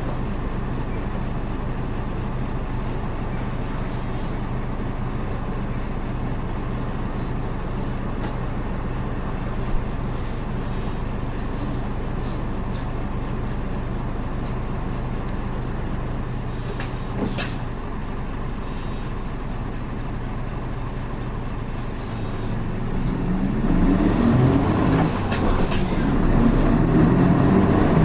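A Hino PKG-RA274MAN city bus's diesel engine idling steadily, then about 23 seconds in revving up and pulling louder as the bus accelerates away. This engine note is known to sound different from other buses of its type.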